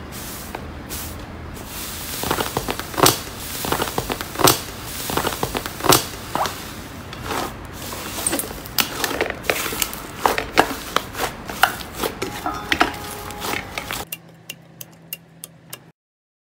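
Slime being squeezed and pressed, giving many irregular sharp crackles and pops. The crackles grow sparser and quieter near the end, then stop.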